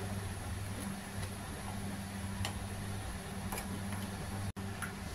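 A metal spoon stirring liquid peanut sauce in a nonstick wok, giving a few light scrapes and taps against the pan over a steady low hum.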